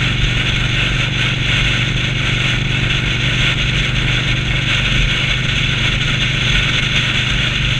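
Indian Scout V-twin motorcycle running steadily at highway speed, a low, even engine drone under a constant rush of wind and road noise on the handlebar-mounted microphone.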